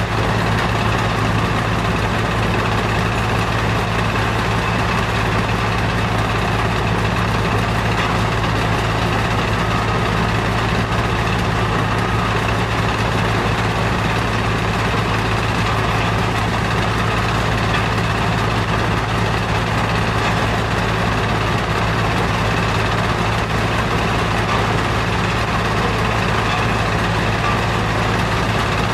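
Stone crusher plant machinery running, a steady low hum under a constant mechanical din.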